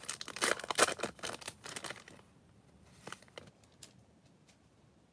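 Foil wrapper of a Topps Chrome trading card pack being torn open and crinkled for about two seconds, followed by a few faint clicks as the stiff chrome cards are handled.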